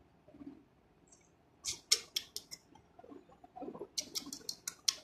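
Quick series of sharp, squeaky kissing clicks made by a person to call a cat. There is a short run of about five clicks near the second mark, then a faster run of about six a second from near the end.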